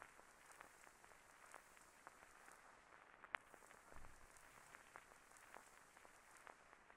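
Near silence: a faint hiss with scattered small clicks, the sharpest about three seconds in.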